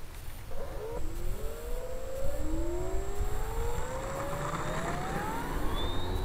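Electric motor and propeller of a 1400 mm P-47 Thunderbolt RC model plane spooling up for a takeoff run. Its whine rises steadily in pitch over several seconds as the throttle is opened, over wind rumble on the microphone.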